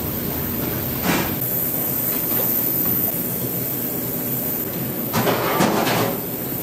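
Steady mechanical hum, with a short rushing scrape about a second in and a longer one, about a second long, near the end.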